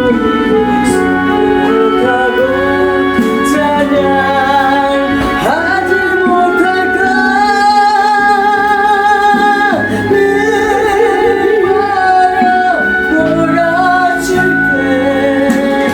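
Gospel song music: a lead melody of long, sliding held notes with vibrato over steady accompaniment.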